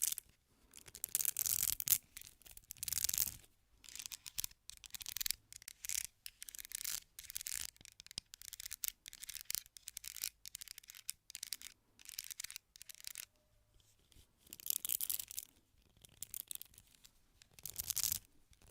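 Close-microphone ASMR trigger sounds: irregular, crisp brushing and rubbing strokes in quick succession, each lasting a fraction of a second to about a second, with short pauses between them.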